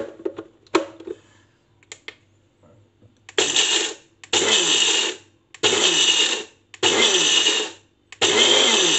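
Kmart multi blender's grinding cup pulse-grinding whole dark roast coffee beans: a few clicks, then five short bursts of the motor, each about a second long with brief gaps, the beans rattling as they are chopped to a coarse grind for cold brew.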